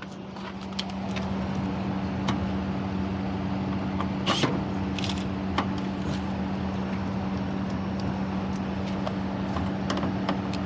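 A steady motor hum that builds up over the first second or two and then holds, with a few sharp clicks and knocks of tools being handled.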